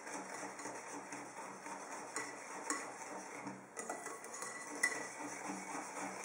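Wire whisk beating a runny cake batter of eggs, sugar, cream and melted butter, before the flour goes in: steady swishing with light clicking of the wires against the bowl, and a couple of sharper clicks about four and five seconds in.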